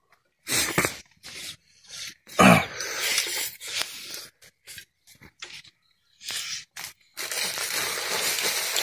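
Close mouth sounds of a man eating rice with his fingers: intermittent chewing and smacking, with one louder throaty burst about two and a half seconds in. A steady hiss comes in near the end.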